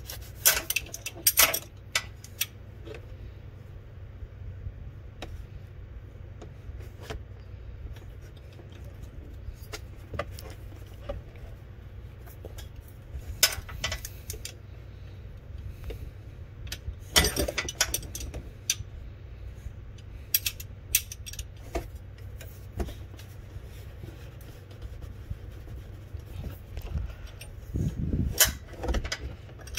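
Metal combination wrenches clinking against each other and the bolt as a tensioner bolt is tightened by hand. There is a sharp clink every few seconds over a steady low hum.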